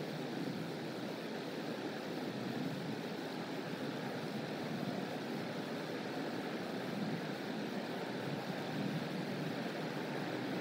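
Steady low rushing outdoor background noise with no distinct calls or knocks, as picked up by a nest cam's open microphone.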